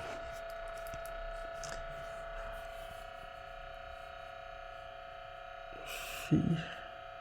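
Quiet background music with steady held tones, and one short louder sound about six seconds in.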